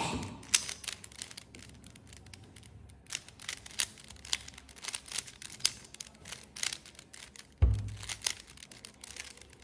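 A plastic 3x3 speed cube's layers clicking as they are turned by hand: a fast, irregular run of sharp clicks. A single dull thump about three quarters of the way through.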